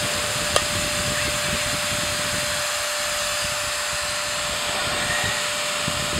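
Hit Zone air batting tee's electric blower running steadily, a hiss of air with an even motor whine, keeping the ball floating. About half a second in, one sharp crack as the bat strikes the floating ball.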